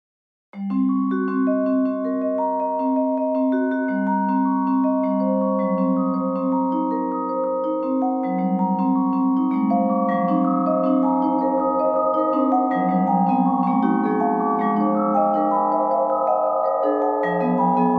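Vibraphone played with four yarn mallets: long, overlapping metal-bar notes that ring on into one another, some of the held notes pulsing. It comes in after about half a second of silence.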